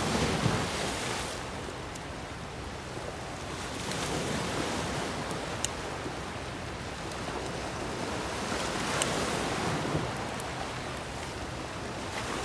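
Sea surf washing over a rocky shore in slow rising and falling swells, with a few faint sharp clicks.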